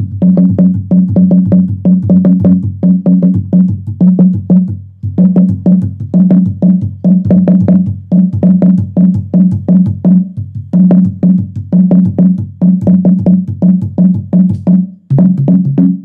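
Manguaré, the Bora hollowed-log slit drum, beaten with two mallets in a quick, steady rhythm of about three to four strikes a second, giving deep wooden tones. The playing breaks off briefly about five seconds in.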